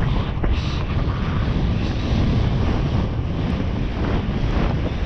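Wind buffeting the GoPro microphone as the horse gallops cross country, a steady low rumbling rush.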